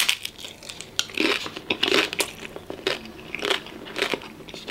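A person biting into a taco and chewing it, with irregular crunches of the shell and wet mouth sounds.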